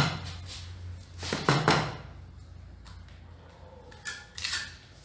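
A few knocks and scrapes of a wooden plastering float being handled at the wall: one at the start, a couple about a second and a half in, and another near the end.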